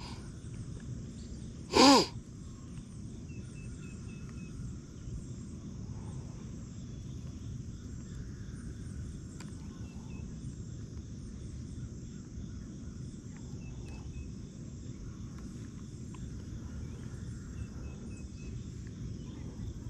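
Lakeside outdoor ambience: a steady high insect drone over a low steady rumble, with a few faint, short chirps now and then. About two seconds in, a single loud, short call with a pitched, bending tone stands out.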